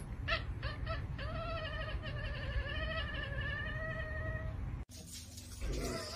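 Ginger domestic cat yowling: a few short meows, then one long, drawn-out yowl with a slightly wavering pitch that lasts about three seconds and cuts off suddenly.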